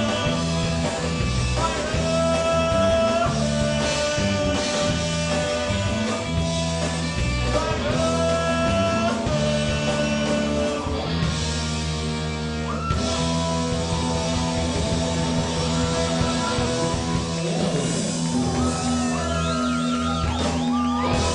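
Rock band playing live, with long held guitar notes over bass and drums.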